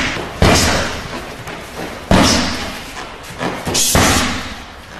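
Three heavy thuds, evenly spaced about a second and a half apart, each with an echoing tail that dies away.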